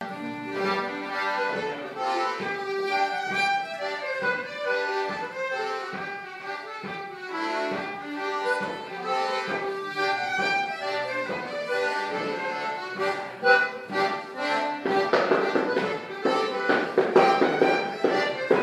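A traditional hornpipe tune plays, an accordion-led folk dance tune. About fifteen seconds in, the rapid tapping of wooden-soled clogs on a wooden floor joins the music as the step dance begins.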